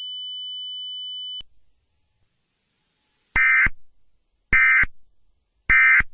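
A steady high electronic tone that cuts off about a second and a half in, then, after a pause, three short identical bursts of data tones about a second apart: the Emergency Alert System's end-of-message SAME bursts that close an alert.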